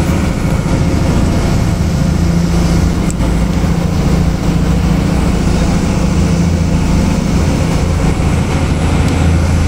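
Fishing boat's engine running steadily with a low, even drone.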